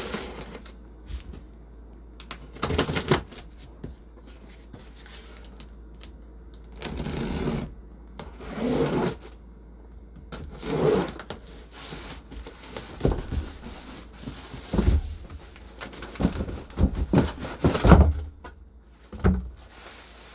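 A taped cardboard shipping box being opened by hand: tape cut and pulled off, the cardboard scraping and rustling in short separate bursts, with a few dull thumps as the box is handled in the second half.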